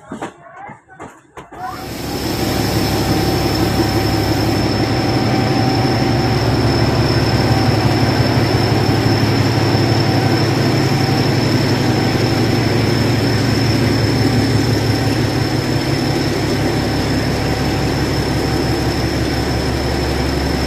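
Locomotive engine running close by: a loud, steady low rumble with a steady high-pitched whine over it, setting in abruptly about a second and a half in.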